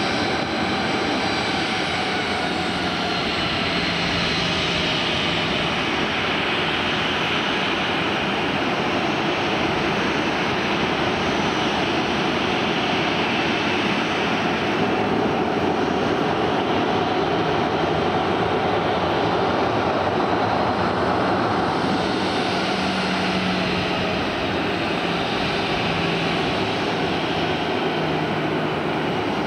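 Jet airliner engines running, a steady loud rushing noise with a faint turbine whine that drifts slowly in pitch.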